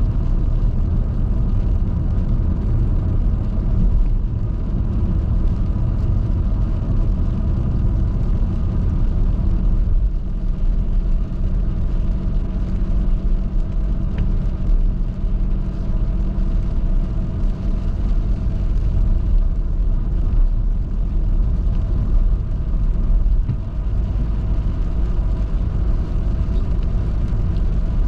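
Steady road noise of a vehicle driving on a highway: a continuous low rumble of tyres and engine with a few faint steady hum tones.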